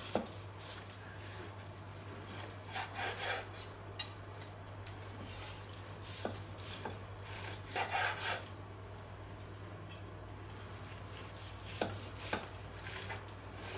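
Carving knife sawing through a rolled beef roast on a wooden cutting board, in short bursts of strokes, with a few sharp taps of the blade and fork against the board. A steady low hum sits underneath.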